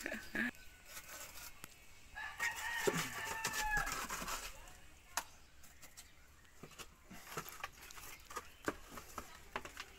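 A rooster crows once, a held call of about two seconds starting a couple of seconds in. Through the rest come small scattered knocks and wet scrapes as mortar is scooped from a plastic bucket in the mud.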